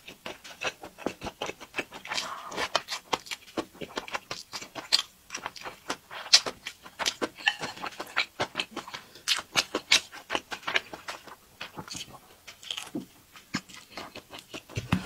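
Close-miked chewing of a pan-fried dumpling: wet mouth clicks and smacks, several a second and irregular.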